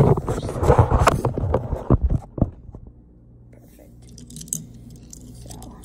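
Hands handling small die-cast metal toy cars on a stone countertop close to the microphone: a dense run of clicks, knocks and rubbing for about the first two and a half seconds, then only a few faint clicks.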